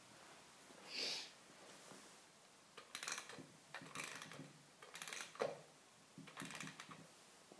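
Clockwork mechanism of a Roullet & Decamps musical automaton, faintly giving four short runs of ratcheting clicks about a second apart. There is a brief rustle about a second in.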